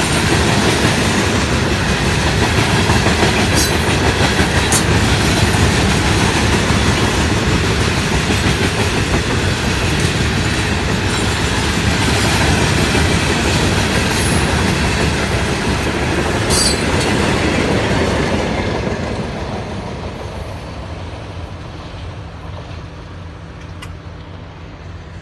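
Loaded coal train's hopper cars rolling past with a steady rumble and clickety-clack of wheels over the rail joints, with a few brief high wheel squeals. Over the last several seconds the sound falls away as the train moves off.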